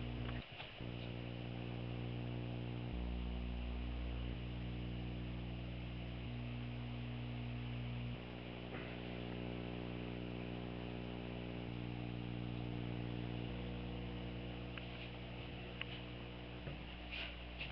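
A steady electrical hum made of several low tones, whose balance shifts a few times, with a few faint clicks near the end.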